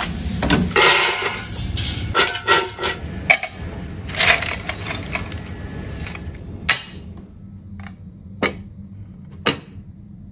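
French fries deep-frying in a wire basket, the oil sizzling with dense, irregular crackling for the first six seconds or so. After that it is quieter, with three or four separate sharp metal clinks as fries are tipped from a slotted spoon into a small metal bucket.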